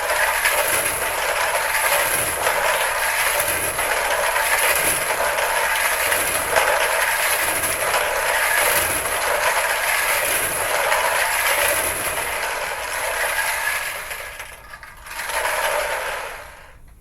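Lottery balls tumbling and clattering inside a rotating draw barrel: a continuous rattle for about fourteen seconds that fades, then a shorter burst of rattling before it stops.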